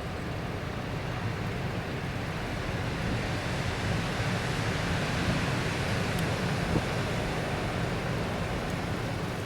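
Rough sea and strong wind in the wake of a typhoon: a steady rush of surf with wind buffeting the microphone, swelling slightly toward the middle.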